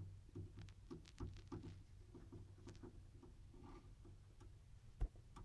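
Faint handling noise: scattered light clicks and rubs over a low hum, with one sharper knock about five seconds in.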